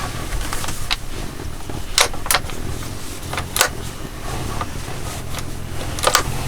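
A few sharp metallic clicks from a hunting rifle's action, two close together about two seconds in, one a little later and a double click near the end: the trigger falling on an empty chamber and the action being worked to chamber a round.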